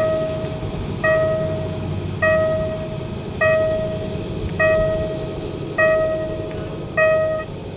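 Automatic level crossing warning bell ringing, one evenly repeated strike about every 1.2 seconds, over a steady low rumble. The ringing stops near the end.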